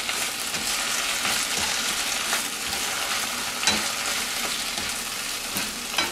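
Spinach sizzling in hot oil in a pan as it wilts down, a steady frying hiss with a few sharp clicks a second or two apart.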